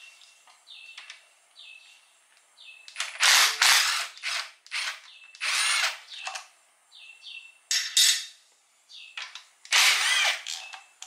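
Cordless ratchet running in short bursts of about half a second to a second, with small clicks in between, backing out the bolts that hold a transmission's internal filter.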